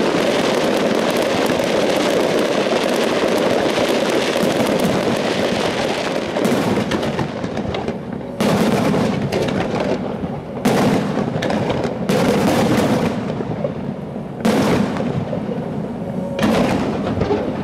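Fireworks display: aerial shells bursting and crackling in a dense, unbroken barrage, which thins about halfway through into single booms every couple of seconds as the show ends.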